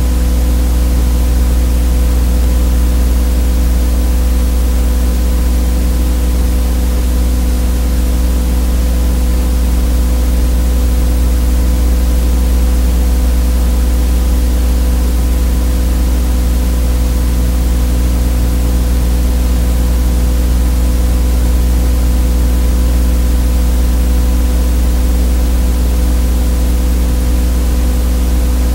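A loud, steady electrical buzz: a low hum with several higher steady tones over an even hiss, unchanging throughout. It is the audio buzz on the sound track of a silent 8mm home-movie transfer, and no sound from the filmed scenes is heard.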